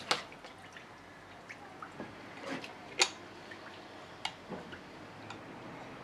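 Scattered small clicks and taps from the starter cord and its handle being wound back onto the top starter pulley of a British Seagull outboard, ready for the next pull-start. The sharpest click comes about 3 s in.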